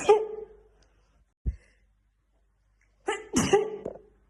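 A woman sneezing in a fit: one sneeze right at the start, then about three seconds in a voiced 'ah' run-up and another loud sneeze. A short, low thump comes about a second and a half in.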